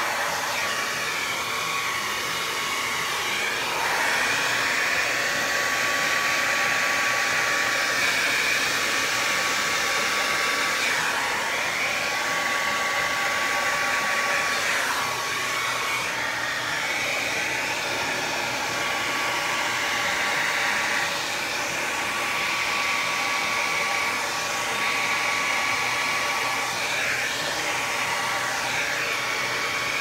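Revlon handheld hair dryer running steadily, blowing wet acrylic pour paint across a canvas. A thin steady whine sits over the rush of air, which shifts briefly a few times as the dryer is moved about.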